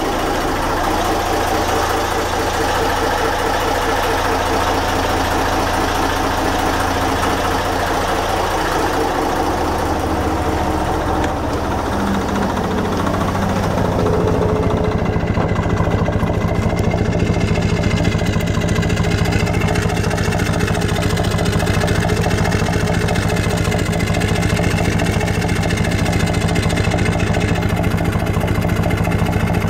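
Yamaha MD201KHY inboard marine diesel engine running steadily. About halfway through, the sound shifts and grows slightly louder.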